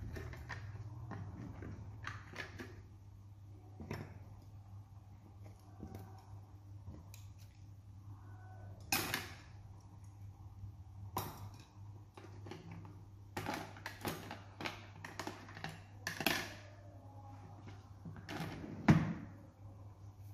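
Scattered, irregular clicks and knocks of small objects being handled on a table, over a steady low hum; the sharpest knock comes near the end.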